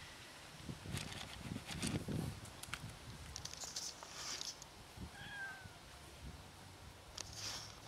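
A cat gives one short, faint meow about five seconds in, amid light rustling and a few dull thuds.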